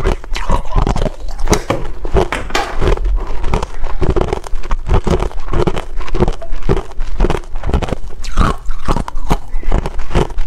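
A person crunching and chewing hard clear ice, biting it into pieces with rapid, irregular crunches several times a second.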